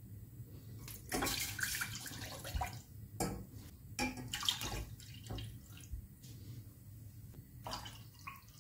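Freshly squeezed orange juice poured from a glass into an empty stainless steel saucepan, splashing in several separate pours.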